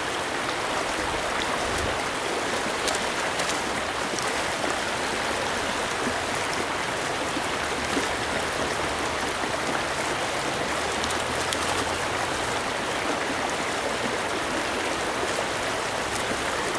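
Fast stream water running over rocks in a riffle: a steady, even rush of water.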